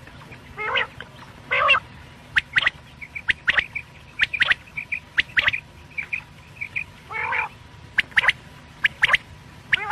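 Quail (batair) calling over and over: short, sharp notes in quick twos and threes, with a few longer, lower, harsher calls about a second in and again near the end, over a faint steady hum.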